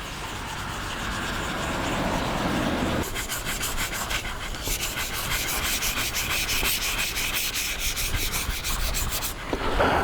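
Sandpaper rubbed back and forth over cured body filler on a car roof, smoothing a repaired rust spot. It starts as a smoother scrape, then about halfway through turns into quick, even back-and-forth strokes.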